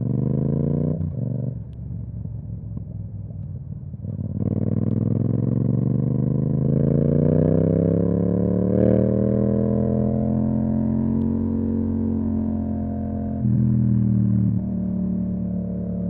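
Yamaha MT-07's parallel-twin engine running through an Akrapovic exhaust. The note drops back about a second in, then climbs steadily in pitch from about four seconds in as the bike pulls up through the revs, with another brief surge near the end.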